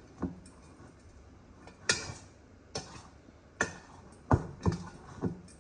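A spoon knocking and clinking against a mixing bowl while bird egg food is stirred: about seven separate knocks, irregularly spaced, roughly half a second to a second apart.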